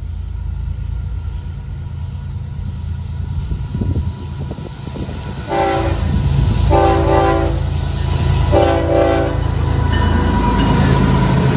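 Air horn of a Florida East Coast GE ES44C4 diesel locomotive sounding three blasts, the last the longest, over the steady low rumble of the approaching locomotives. The engine rumble grows louder near the end as the lead units pass close by.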